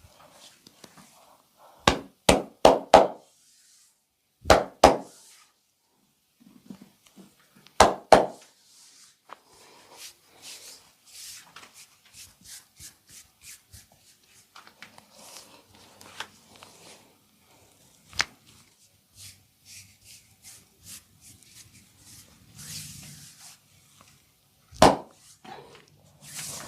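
Hand strikes of a percussive massage: a quick run of four sharp slaps, then pairs and single hard strikes, with a long stretch of lighter rapid tapping in between.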